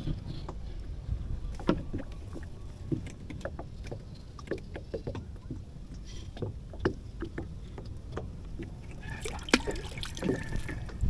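Light clicks and knocks of fishing tackle being handled in a small boat while a hook is baited and the rod is swung back out, over a steady low rumble.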